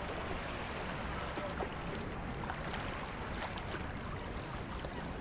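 Steady rushing noise of water, with scattered small clicks.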